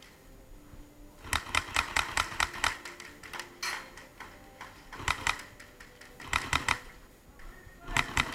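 Airsoft gun firing several quick strings of sharp clicking shots, about seven a second, with short pauses between the strings.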